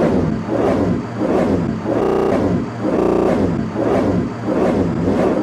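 A short sound clip looped in a rapid stutter, repeating about twice a second, with a held pitched tone breaking in twice near the middle.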